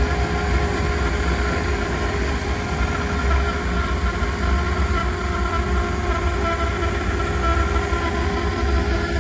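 Steady machinery hum of a tunnel car wash, with a constant low rumble and a few held tones, mixed with a car engine idling close by.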